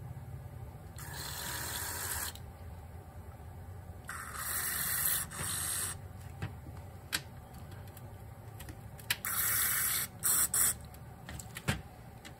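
Aerosol carburetor cleaner sprayed through a straw nozzle into the fuel ports of a Honda GL1500 Goldwing carburetor, in several short hissing bursts of one to two seconds, blowing the passages clear.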